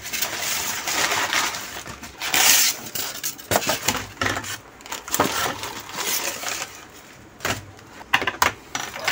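Packaging being opened and unwrapped by hand: irregular rustling and crinkling of wrapping, with scattered sharp clicks and knocks and a louder rustling burst about two and a half seconds in.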